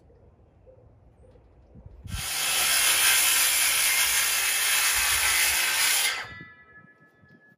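A handheld power tool runs for about four seconds, starting about two seconds in. When it is let off, its motor spins down with a fading whine.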